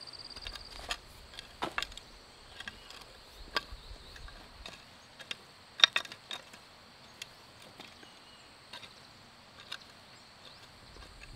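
Irregular sharp clicks and knocks, the loudest about six seconds in, over a steady high-pitched insect buzz.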